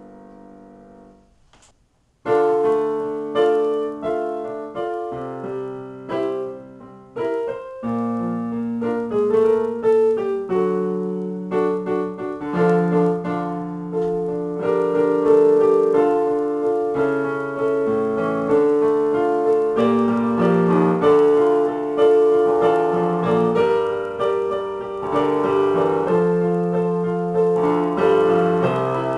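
Yamaha digital piano, improvised playing. A held chord fades out, there is a brief gap, then a new passage starts about two seconds in and builds into fuller, louder playing with a steady moving bass line.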